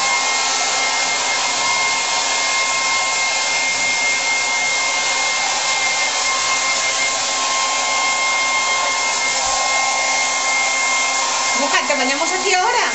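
Electric hair dryer running steadily on a freshly bathed puppy's wet coat: a rush of air with a steady whine over it. Near the end a brief wavering, pitched sound rises and falls above it.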